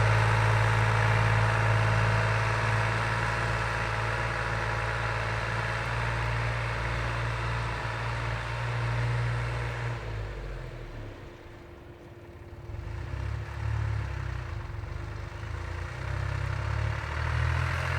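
Diesel engine of a 1992 John Deere 52 hp tractor running steadily, then dropping in level for a couple of seconds about two-thirds of the way through and coming back less evenly, its note shifting as it builds again.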